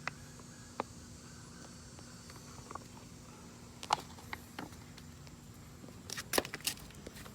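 Scattered light clicks and knocks of hands handling things, a cluster of them about six seconds in, over a faint steady hum.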